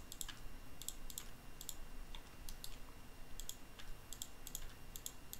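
Computer mouse and keyboard clicking while objects are selected and moved: a dozen or so faint, light clicks at irregular intervals, many in quick pairs.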